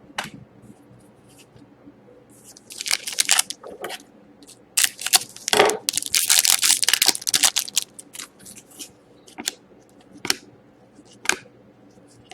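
Crinkling and tearing of a trading card pack's wrapper as it is opened and handled, in short bursts about three seconds in and then a longer run of crackling between about five and seven and a half seconds, with light clicks of cards being handled.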